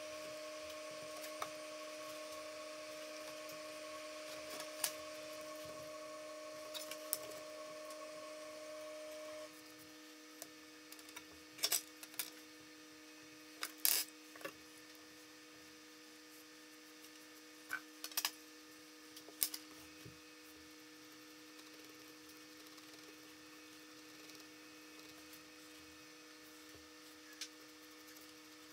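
Quiet workshop room tone with a steady electrical hum, broken by a few sharp clicks and taps of a steel ruler and marker being handled and set down on a plywood blank on a wooden workbench. The background hiss drops a step about a third of the way in.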